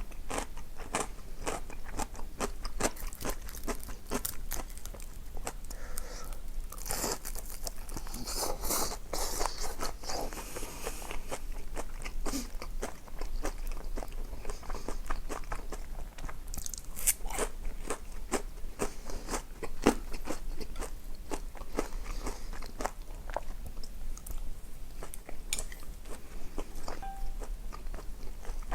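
Close-miked eating sounds: steady, irregular crunching and chewing of food, many small crisp crunches one after another, thickest about seven to eleven seconds in.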